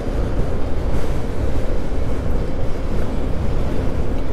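Steady wind rush buffeting the microphone, with road noise, as an electric scooter rides along the highway at about 60 km/h.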